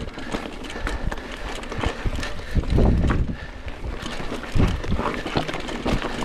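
Mountain bike rolling over a rocky dirt trail: tyres crunching on stones and the bike rattling and knocking in quick irregular clicks, with a louder low rumble a little under halfway through and again about three-quarters of the way.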